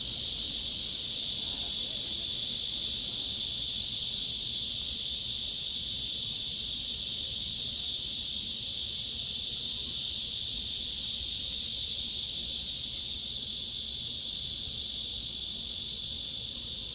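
Cicada chorus: a steady, dense, high-pitched buzzing hiss that holds without pauses or changes.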